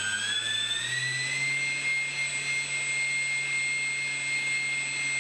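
3D-printed electric ducted fan spinning up on its brushless motor during its first test run. Its whine rises in pitch over about the first second and a half, then holds steady, with a thin high steady tone above it.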